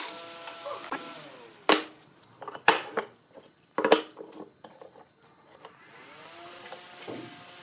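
An electric power tool's motor winds down about a second in. Three sharp knocks on wood follow, about a second apart, and the motor then spins back up near the end.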